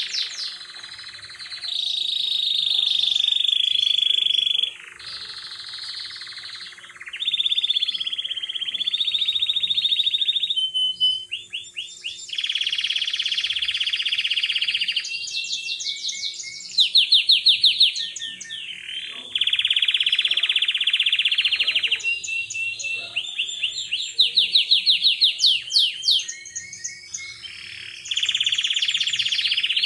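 Belgian canary singing: long, even trills held for two to three seconds at a time, alternating with rapid runs of repeated sweeping notes.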